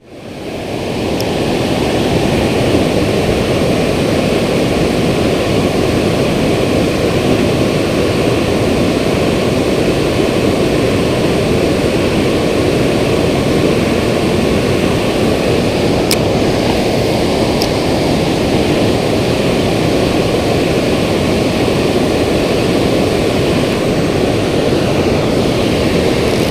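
Water rushing over a dam spillway: a loud, steady roar that fades in over the first second or two and then holds level.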